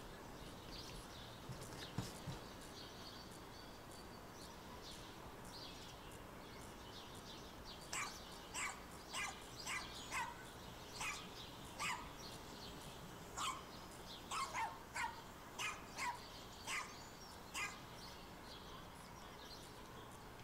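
A dog barking faintly: a run of about sixteen short, irregularly spaced barks, starting about eight seconds in and stopping a few seconds before the end.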